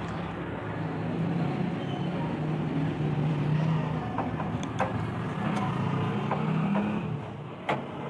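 Screwdriver and hands working on a microwave oven's sheet-metal rear cover: a few light metallic clicks and taps, then a sharper click near the end. A steady low rumble runs underneath.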